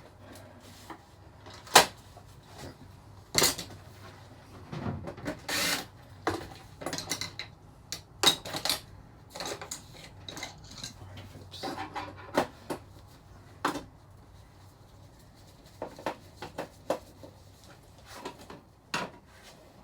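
Hand-tool and handling noise on a flat-screen TV's plastic back casing during disassembly: scattered sharp clicks and knocks, the sharpest a little under two seconds in, with a few short scrapes.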